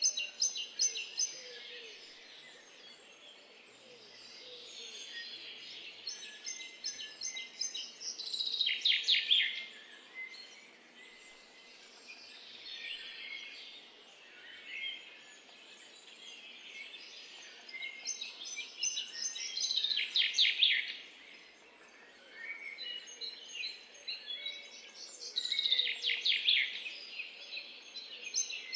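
Small birds singing, with a rapid trilled song phrase repeating every few seconds, loudest near the middle and toward the end, over a faint steady outdoor background hum.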